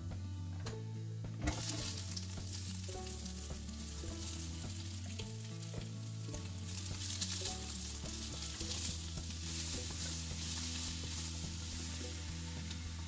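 Oil sizzling in a stainless steel stockpot with frying garlic; about a second and a half in, chopped Chinese leaf goes in and the sizzle jumps louder, then goes on steadily as the vegetables fry. Near the end, a spatula stirs them. Soft background music with a bass line plays underneath.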